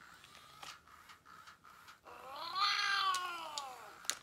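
FurReal Friends Torch dragon toy's speaker playing a recorded creature call: one meow-like cry that rises and then falls in pitch, lasting about two seconds from about halfway in. A few faint clicks come before it.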